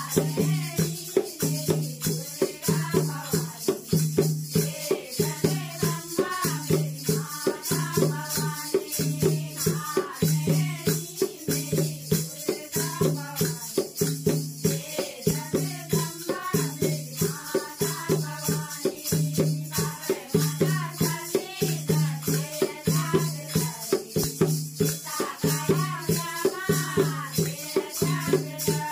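Women singing a Hindi devotional bhajan together, accompanied by a dholak drum keeping a steady beat and the constant jingling of chimta tongs and hand cymbals.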